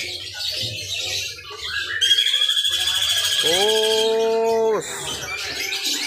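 A caged songbird gives one very long, high trill lasting about two seconds, starting about two seconds in. A lower, steady held tone joins near its end for about a second and a half.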